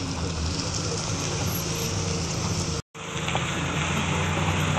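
Vehicle driving slowly over a rough dirt road: a steady rumble of engine and tyres on dirt and gravel, broken by a short silent gap about three seconds in.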